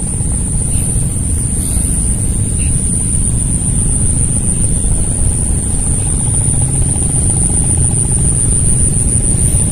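A steady low rumble with a constant high-pitched insect drone over it.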